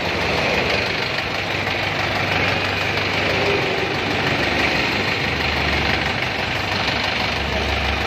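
Four-wheel farm tractor's diesel engine idling steadily on a test run after a weld repair to its cracked lower engine block and crankcase.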